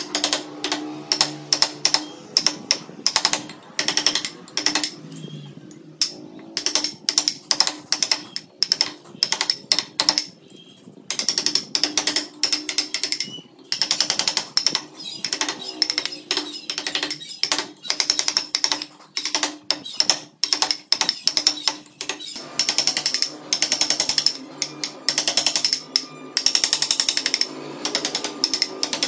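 Carving gouges chipping into wood: bursts of rapid sharp clicks and taps, several a second, with short pauses between bursts.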